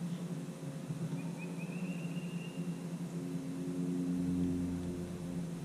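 A steady low motor hum made of several pitched tones, growing a little louder about four seconds in and easing off near the end.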